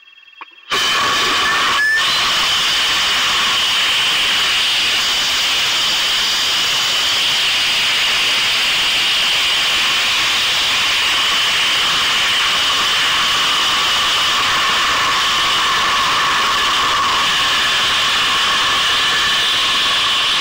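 Onboard nose-camera audio of a two-stage high-power rocket on sugar motors: a loud, steady rushing hiss of motor and airflow noise starts abruptly a little under a second in, at liftoff, and runs on unchanged as the rocket climbs at hundreds of miles an hour. Faint steady whine tones from the onboard electronics sit underneath.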